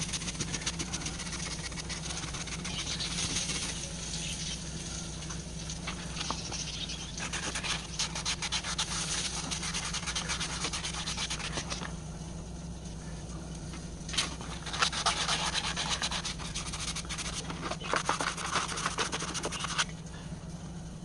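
Hand sanding: quick scratchy rubbing strokes that ease off about halfway through, start again after a sharp tick, and stop shortly before the end, over a steady low hum.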